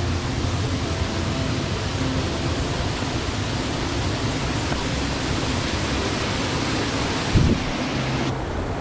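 Steady rush of flowing water from a mountain creek or waterfall, with a single dull thump near the end.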